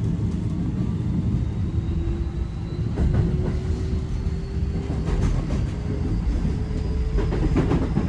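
Keio 5000 series electric train running, heard from inside the car: a steady rumble of wheels on rail with the traction motors' whine falling slightly in pitch, and a few clacks over rail joints about three, five and seven and a half seconds in.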